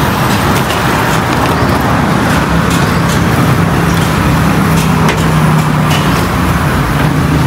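Road traffic on a city street: cars driving past in a steady wash of engine and tyre noise, with a low engine hum that grows a little stronger about five seconds in.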